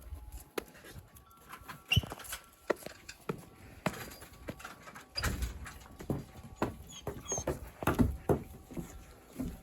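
A dog moving about, making irregular light taps and knocks, with duller thumps from about five seconds in.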